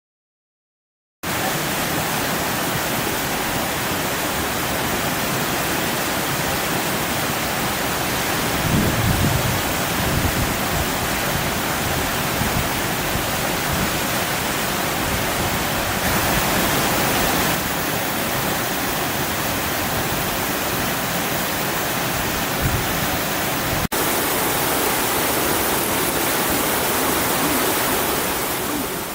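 A waterfall sliding down a natural rock chute, rushing with a steady, even sound of falling water. It starts suddenly about a second in and breaks off briefly near the end.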